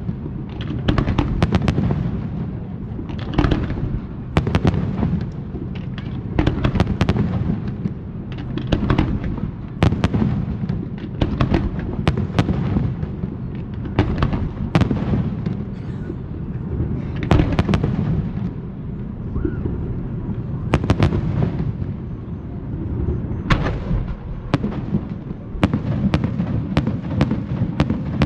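Aerial fireworks going off in a dense, continuous barrage: sharp bangs several times a second over an unbroken low booming that never drops away.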